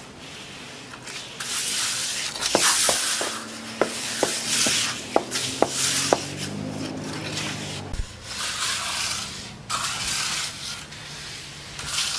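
Shovels scraping and pushing through wet concrete in repeated strokes while it is spread and levelled, with a handful of sharp clicks of tool against tool in the first half.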